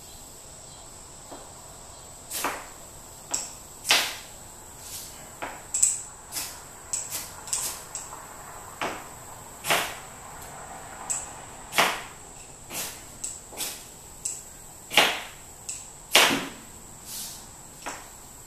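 A ferrocerium fire-starter rod scraped hard with its striker again and again, about one sharp scrape a second at uneven intervals, throwing sparks onto Pyro Putty to light it.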